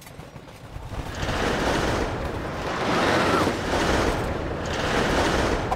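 Cartoon sound effect: a loud, dense crackling rush of noise that builds over the first second and then swells roughly once a second.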